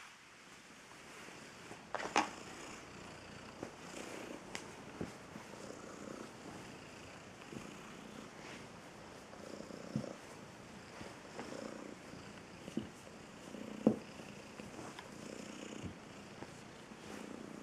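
Cat purring steadily while being stroked, the purr swelling and easing with its breathing. A few short sharp clicks sound over it, the loudest about two seconds in and again about fourteen seconds in.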